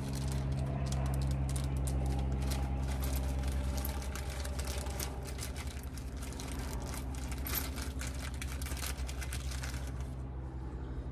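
A steady low machine hum, with many light clicks and rattles of small metal hardware being handled; the clicking dies away shortly before the end.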